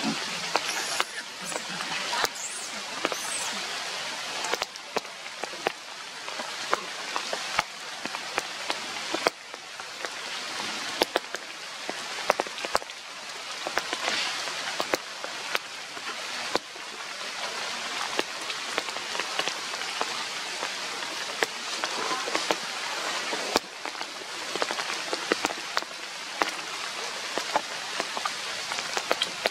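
Steady rain falling: an even hiss with many raindrops ticking.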